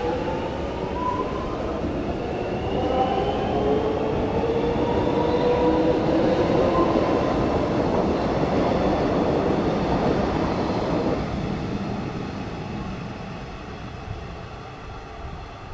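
High Capacity Metro Train (HCMT) electric train running past close by, with a rising whine over the rumble of wheels on rail. It fades away over the last few seconds.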